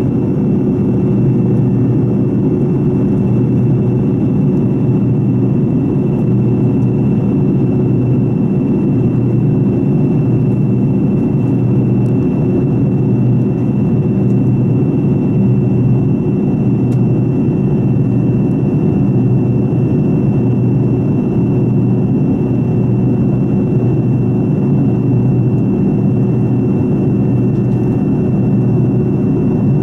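Rolls-Royce Tay turbofan of a Fokker 70 running steadily in flight, heard inside the cabin: an even low roar with a thin, steady high whine over it.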